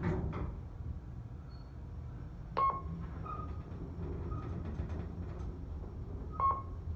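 KONE hydraulic elevator car descending with a steady low hum. Two short electronic chimes ring about four seconds apart as the car passes floors.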